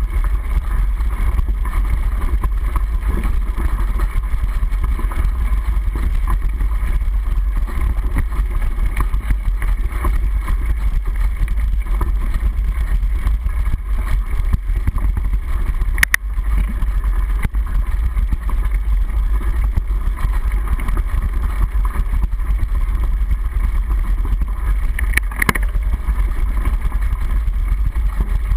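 Mountain bike rolling over a dirt forest trail, heard through a handlebar-mounted camera's waterproof housing: a steady, muffled low rumble of trail vibration. A sharp knock comes about sixteen seconds in, and two more close together around twenty-five seconds.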